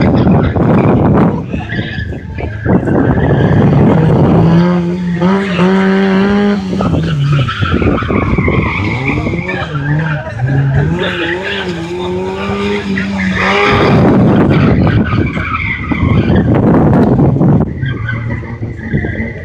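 Engine-swapped Fiat 126p being driven hard. Its engine revs up and down repeatedly, and the tyres skid loudly in noisy stretches near the start and again for several seconds later on.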